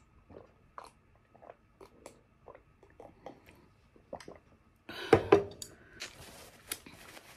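Close-miked gulping as warm lemon-and-honey drink is swallowed from a glass mug, a steady run of gulps about two or three a second. About five seconds in come two loud knocks, then a paper tissue rustles.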